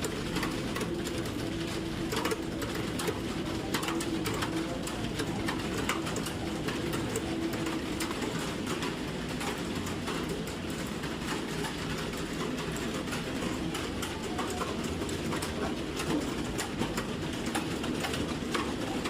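Many computer keyboards being typed on at once: a dense, irregular clatter of keystrokes over a steady low hum.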